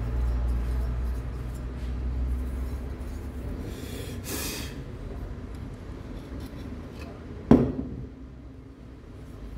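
Workshop handling of metal engine parts: a low rumble in the first few seconds, a short hiss about four seconds in, then one sharp metallic clank with a brief ring about seven and a half seconds in.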